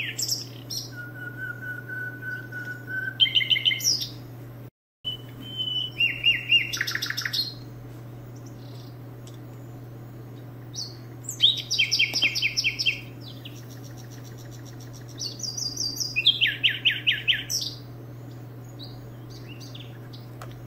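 Birds singing: four bouts of fast, pulsed chirping, with one long steady whistled note about a second in, over a steady low hum.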